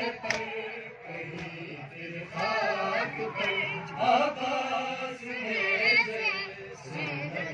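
Men's voices chanting a nauha, a Shia mourning lament, drawn out between sung lines, with occasional sharp slaps of chest-beating (matam).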